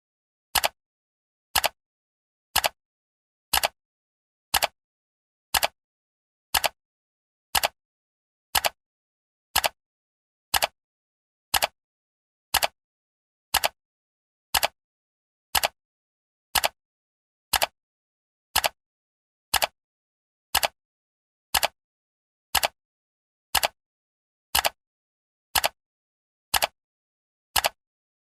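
Countdown timer's ticking sound: a short, sharp tick once every second, evenly spaced, with silence between the ticks.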